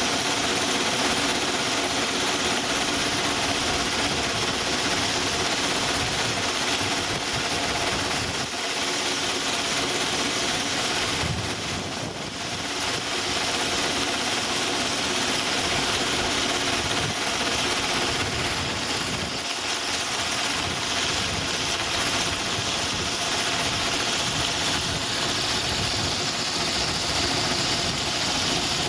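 Heritage locomotive running steadily along the line, heard from beside the cab: continuous engine and running noise with wheel and wind noise mixed in, easing slightly about twelve seconds in.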